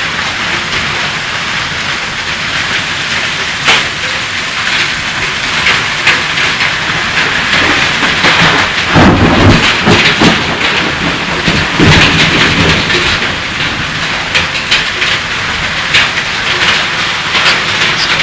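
Heavy rain pouring down, a dense steady hiss full of sharp pattering drop impacts. A heavier low rumble swells about nine seconds in and lasts for about three seconds.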